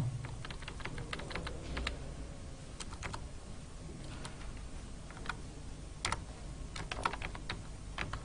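Computer keyboard keys clicking in short, irregular runs of keystrokes as a word on a command line is deleted and a new one typed. The clicks are faint.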